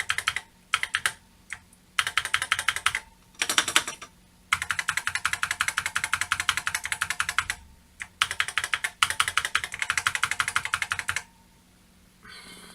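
Typing on the Tatung Einstein's keyboard, whose repaired key switches each hold a spring and a metal leaf contact: fast runs of key clicks in several bursts with short pauses, the longest lasting about three seconds. The keys are being typed to show that the whole keyboard now works.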